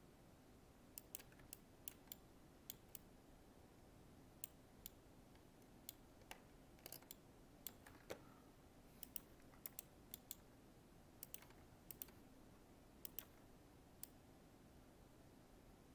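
Faint, irregular clicks of a computer mouse, some in quick pairs, over a low steady hum.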